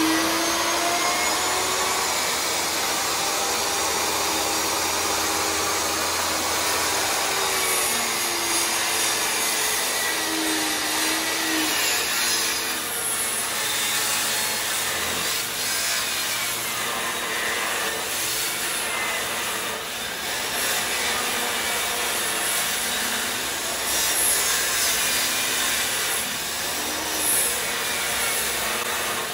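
Ridgid portable jobsite table saw running steadily while ripping a 2x10 board along its length, the blade cutting through the wood to trim off the board's rounded factory edge.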